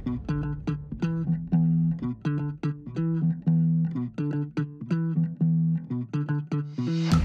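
Background music: a quick, even run of plucked notes.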